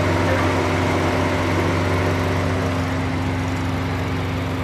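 Audi S3's turbocharged 2.0 TFSI four-cylinder, fitted with an aftermarket CTS turbo and open cone-filter intake, idling steadily.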